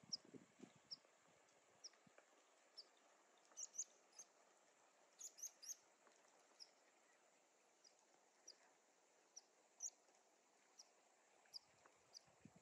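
Faint, short high chirps from a small bird, repeated irregularly about once or twice a second, with a few soft low thumps at the very start and near the end.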